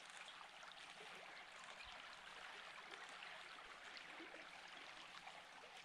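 Faint, steady babbling of a small brook.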